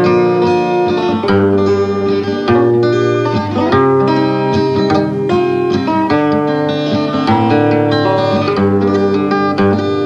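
Instrumental interlude of a song with no singing: a plucked-string, guitar-like melody over held accompanying notes.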